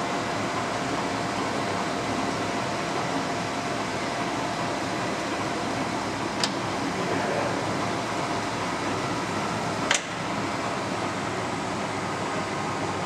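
1977 Leblond Regal Servo-Shift engine lathe running steadily under power with its threading feed engaged: an even gear-head and motor hum. Two sharp clicks, about six and a half and ten seconds in.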